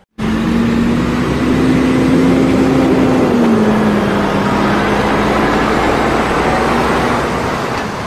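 Heavy truck with a drawbar trailer driving past: engine drone with road and tyre noise, the engine note dropping slightly about three seconds in.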